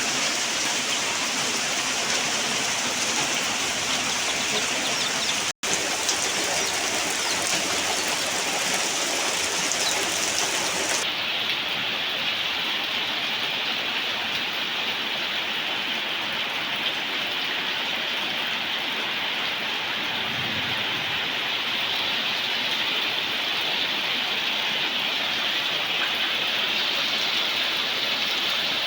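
Heavy downpour: a steady hiss of rain falling. It cuts out for a split second about five seconds in, and from about eleven seconds in it sounds a little duller.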